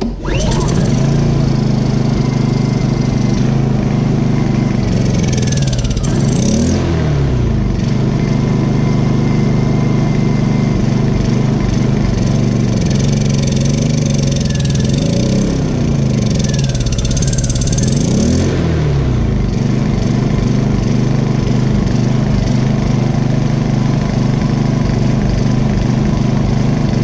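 Honda EU2000i inverter generator's single-cylinder four-stroke engine catching right at the start, then running on Eco Throttle with its cover and air intake removed. Its speed swings up and down a few times, around six seconds in and again between about 13 and 18 seconds in: the surging the owner ties to how it is running in this state.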